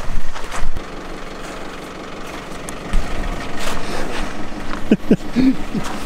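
Car engine idling steadily, with wind buffeting the microphone in the first second.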